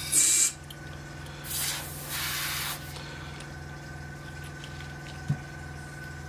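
Airbrush spraying through during cleaning: a short, sharp hiss of air, then a longer hiss about a second and a half in, as the brush is flushed out. A steady low hum runs underneath.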